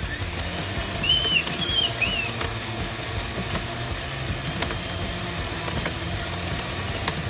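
Radio-controlled construction machine running with a steady low engine-like drone, with three short high chirps about a second in.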